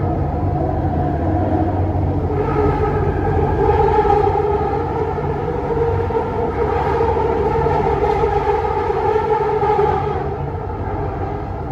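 Bombardier Innovia Metro 300 train running at speed, heard from inside the car: a steady whine from its linear induction motor drive over the low running rumble, easing off slightly near the end.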